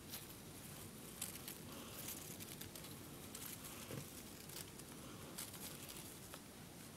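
Faint crinkling and rustling of paper strips and sticky tape being handled, with scattered light ticks.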